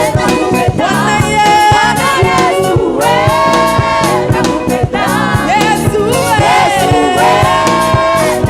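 Gospel song sung with a band: a lead vocal with backing voices holding long notes over drums, bass and keyboard with a steady beat.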